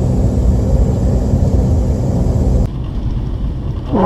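Steady low rumble of road noise inside a moving car. It drops abruptly to a quieter rumble a little under three seconds in.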